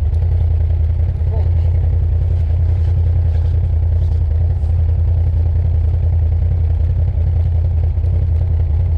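Can-Am Outlander XMR ATV engine running steadily at constant low revs, a deep even drone with no revving up or down.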